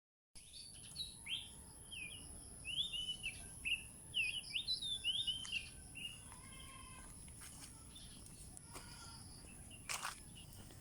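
Birds chirping: a quick run of short, bright chirps over the first half, then scattered calls. A thin steady high tone runs underneath, and there is a sharp click near the end.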